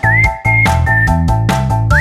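Music with a whistled melody that slides up into its notes, over a bass line and chords in short, regularly broken phrases.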